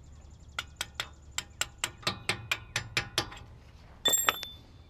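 Quick series of light metallic hammer taps, about four or five a second, on a chisel against the brake caliper's pad pins. Near the end comes a louder metal clank that rings on briefly.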